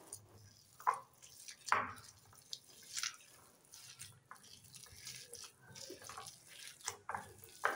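A hand squishing and kneading a wet, oily cabbage cutlet mixture of shredded cabbage, rice flour and gram flour in a bowl: soft, irregular wet squelches, a handful of them louder than the rest.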